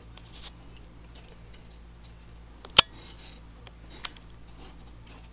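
Small clicks and rustles of hands handling a Singer Stylist 457 sewing machine while threading it, with one sharp click a little past halfway.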